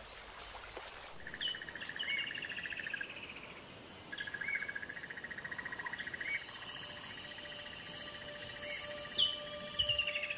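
Natural ambience of insects and birds: a regular high chirp about three times a second for the first second, then, after a cut, several long pulsed trills that overlap, each opening with a short rising note.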